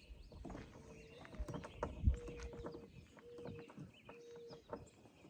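A screw being driven back into a car door handle assembly while it tries to cross-thread: scattered clicks and knocks, with four short bursts of a steady low hum between about one and five seconds in. Birds chirp faintly in the background.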